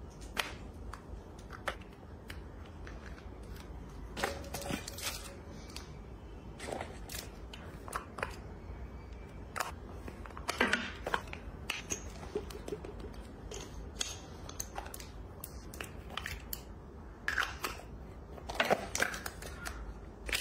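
Scattered light clicks, knocks and clatter of dishes and a cutlery basket being set into a dishwasher's wire racks, over a low steady hum.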